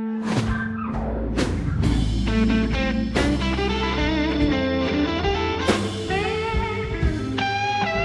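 AI-generated blues music: electric guitar playing bending lead lines, with drums coming in within the first second.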